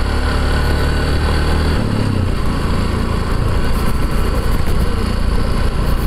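A vehicle engine running steadily, with road noise. The low engine note shifts about two seconds in.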